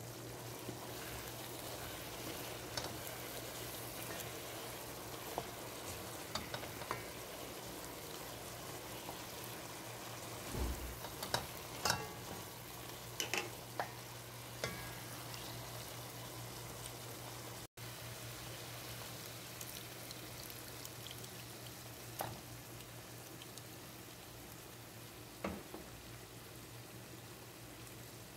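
Spiced mutton sizzling in oil in a pan, with a spoon clicking and knocking against the pan as it is stirred, most busily between about ten and fifteen seconds in.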